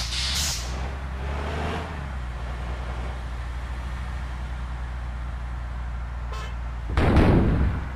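Large bus engine idling steadily, with short bursts of hiss at the start and a loud blast near the end.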